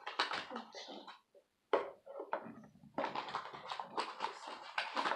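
Crinkling and rustling of toy packaging being handled and opened: a cardboard blind box and foil-wrapped and plastic surprise eggs. It comes in irregular crackly bursts, with short pauses about a second in and about two seconds in.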